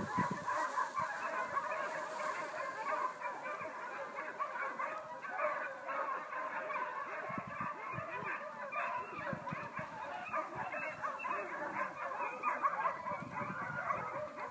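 Many dogs barking at once in a dense, unbroken chorus of overlapping calls.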